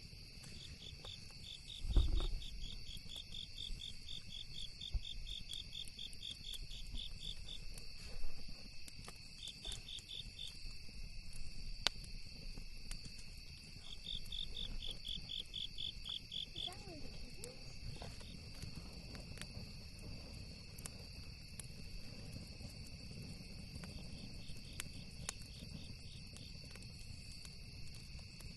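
Night insects calling: a steady high-pitched drone with repeated trains of fast, even chirps. Scattered sharp crackles and pops from a campfire, a low rumble, and a dull thump about two seconds in.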